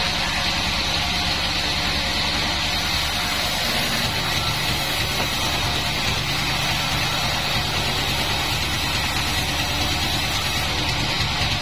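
Sawmill bandsaw's engine running steadily, with no cutting, under a constant high hiss.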